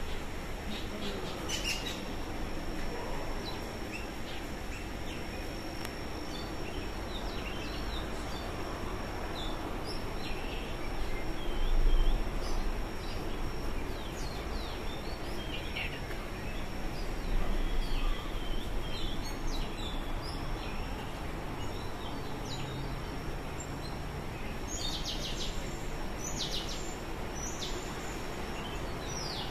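Outdoor garden ambience with birds chirping here and there over a steady background hiss, and a faint steady high tone running underneath. Twice in the middle there is a brief low rumble, and near the end comes a quick run of short bird calls.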